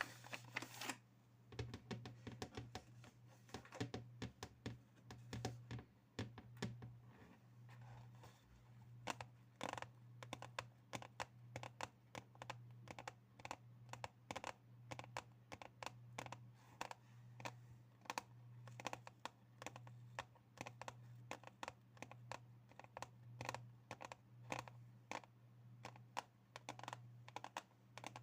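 ASMR tapping on hard objects: quick, irregular light taps and clicks, several a second in clusters, over a steady low hum.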